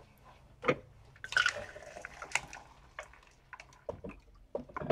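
Liquid poured briefly into a cup about a second in, among light knocks and clicks of cups and utensils being handled on a table.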